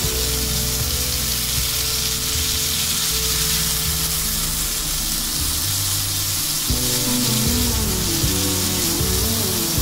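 Marinated chicken tikka pieces on skewers sizzling in hot oil on a cast-iron grill pan, a steady hissing frying sound. Background music plays underneath, with a melody coming in about seven seconds in.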